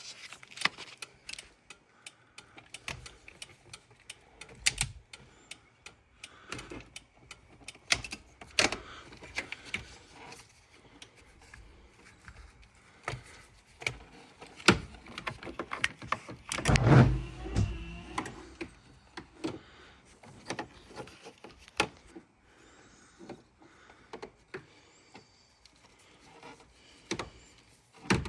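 Steering-column wiper/headlight combination switch in a 1986 Toyota 4Runner being clicked through its positions: many sharp, irregular clicks, with a louder mechanical burst lasting about a second roughly two-thirds of the way through.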